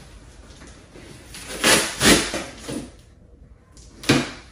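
A cardboard shipping box being cut open, with a blade drawn through the packing tape and the cardboard scraping and rustling in a few short bursts. The loudest bursts come about two seconds in, then a sharp snap of cardboard about four seconds in.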